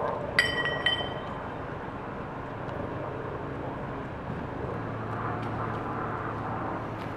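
Two sharp ringing metal clinks about half a second apart near the start, over the steady low rumble of idling emergency vehicles; a steady low hum joins about two-thirds of the way through.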